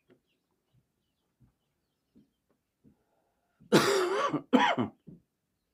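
A man coughs and clears his throat in two loud, harsh bursts about four seconds in, the first longer than the second. A few faint soft clicks come before them.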